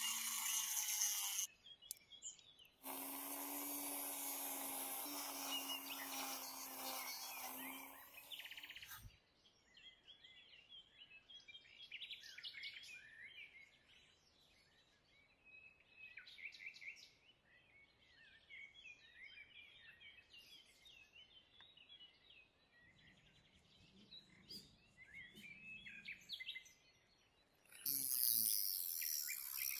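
Cordless drill spinning a small cutting disc against the parts of a model truck's suspension, a steady motor whine under a hissing grind, for a moment at the start, then for about six seconds, and again near the end. In the quiet stretch between, birds chirping faintly.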